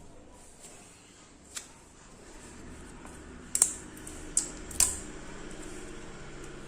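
A few sharp clicks and knocks, like hard objects tapping together: one small one about a second and a half in, then three louder ones close together in the middle, over a faint steady background hiss.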